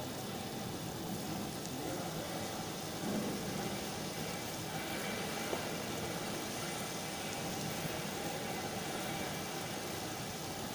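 Chopped tomatoes, onion and garlic cooking in a steel saucepan over a gas burner: a steady, soft sizzling and bubbling.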